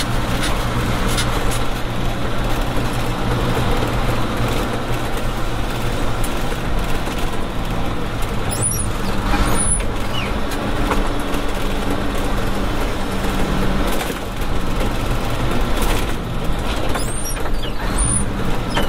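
Inside the cab of a Tadano GT550E truck crane with the windows closed: its Nissan Diesel PF6TB engine running steadily under way, with road and tyre noise.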